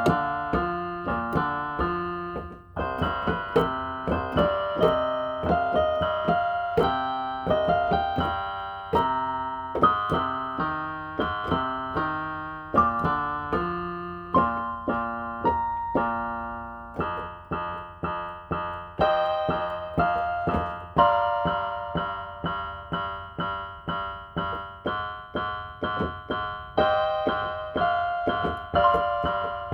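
Inexpensive electronic keyboard played on a piano voice by a self-taught beginner: a melody over chords, notes struck one after another at a moderate pace, with a brief break about three seconds in.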